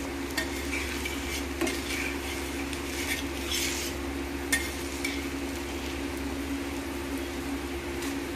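Gur ke pude (jaggery-dough pancake) frying in oil on a tawa, sizzling steadily, while a metal spatula scrapes and clinks against the pancake and griddle every second or so, most often in the first few seconds. A steady low hum runs underneath.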